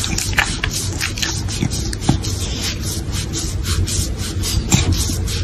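Hands rubbing a corgi's ears and fur, a steady dense rustling full of small scratchy clicks.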